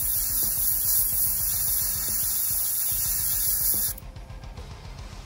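Airbrush spraying paint: a steady high hiss of air that cuts off sharply about four seconds in.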